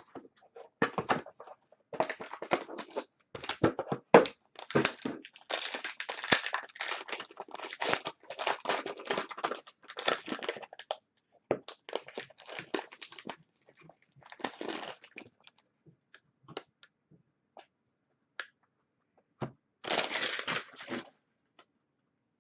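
Plastic wrapping on a box of football trading cards being torn open and crinkled, in dense crackling for the first dozen seconds, then a short patch and a last burst near the end.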